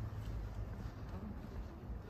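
Outdoor ambience with wind on the microphone: a low, uneven rumble.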